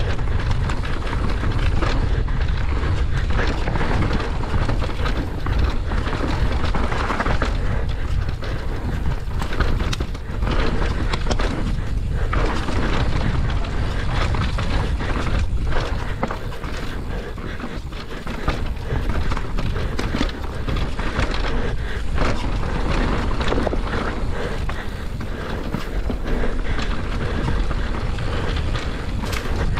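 Mountain bike descending a rough enduro trail, heard from a rider-mounted camera: wind buffets the microphone over the tyres rolling on dirt, with frequent sharp knocks and rattles from bumps.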